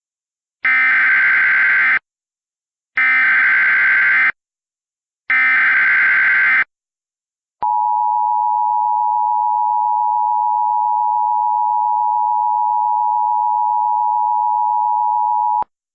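Emergency Alert System SAME header: three short, identical bursts of warbling data tones, then the EAS two-tone attention signal held steady for about eight seconds before it cuts off. The tones mark the start of an emergency alert, here a flash flood warning.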